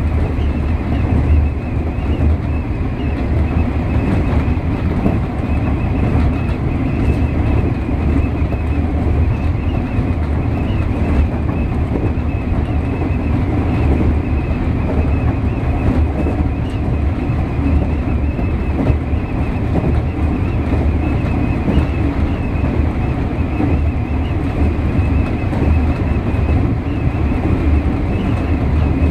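A JR 201 series electric train running steadily at speed, heard from the driver's cab: a low, even rumble of the wheels on the rails, wind rushing past the cab window, and a steady jet-like whine.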